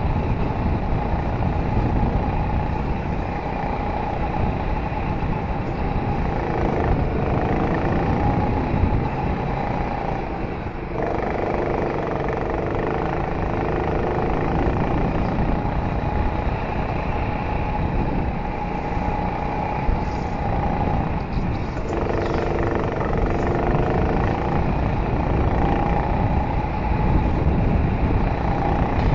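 Go-kart engine running hard, heard from on board the kart, its pitch dipping and climbing again several times as the throttle is lifted and reapplied through the corners.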